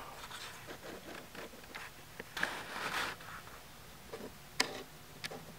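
Faint handling noise of a smartphone held in the hand: soft rubbing and shifting of fingers on the phone and its case, with a few light clicks, the sharpest about four and a half seconds in.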